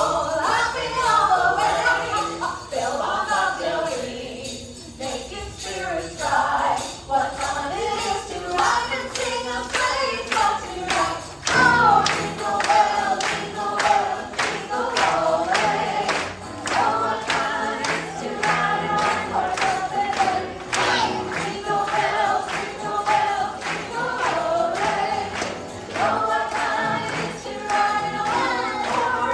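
Stage musical number: a group of voices singing a festive song over band accompaniment, with jingle bells or tambourine. About a third of the way in, a steady beat and bass come in.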